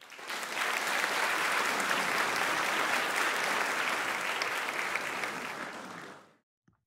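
Applause, a steady clapping that fades slightly and then cuts off abruptly about six seconds in.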